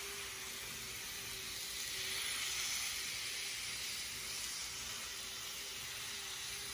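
N scale model train running on track: the Intermountain locomotive's small motor hums and the wheels give a steady hiss on the rails. The sound swells slightly about two to three seconds in as the train passes closest.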